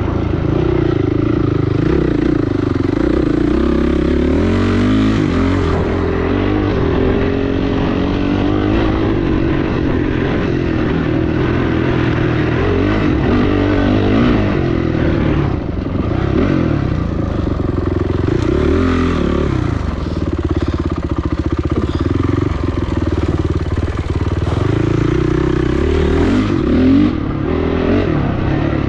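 Off-road dirt bike engine running hard under racing load, its revs rising and falling again and again as the throttle is worked and the gears are changed.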